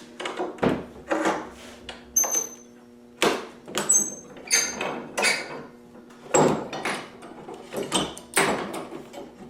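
Metal workshop gear being handled and set down: a run of irregular knocks and clanks, a few with a brief metallic ring, over a steady low electrical hum.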